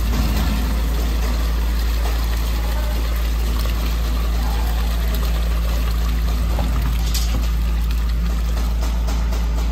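Water running and pouring steadily as grated bottle gourd is washed, over a steady low hum.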